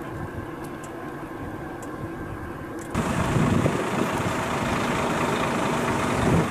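Heavy diesel trucks idling in a stopped queue, with a steady outdoor rush; the sound jumps louder about three seconds in.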